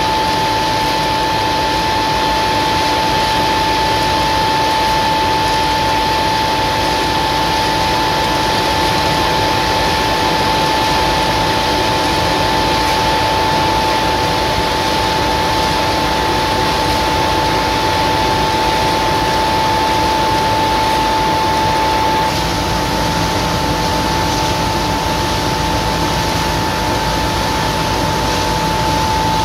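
Belt-driven centrifugal wet shell transport fan of a palm oil mill running steadily: a loud, even rush of moving air with a steady whine over it. The low hum shifts a little about two-thirds of the way through.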